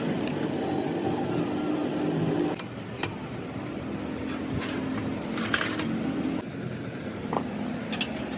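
A motor running steadily, its hum dropping a step about two and a half seconds in and again near the end, with a few sharp metallic clinks.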